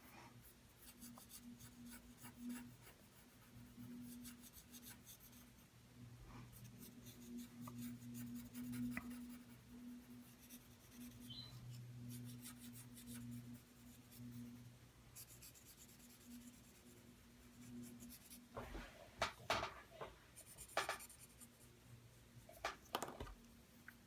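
A paper blending stump rubbing graphite across drawing paper, a faint soft scratching, with a steady low hum underneath. Near the end come a few louder clicks and knocks.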